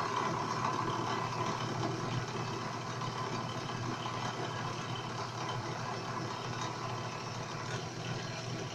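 Drill press motor running steadily as the spindle of a home-built three-axis CNC, a constant hum under a busier noise of the bit cutting into a wooden board while stepper motors feed the table.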